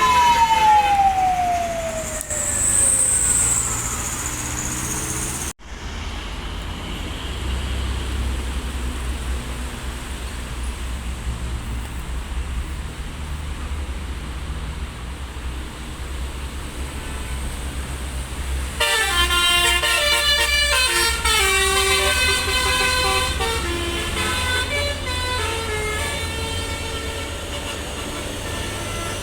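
Tour bus telolet horn: first a siren-like wail falling steadily in pitch, then, after a break, the low steady rumble of a bus engine running, and from about two-thirds through a rapid multi-note telolet horn melody.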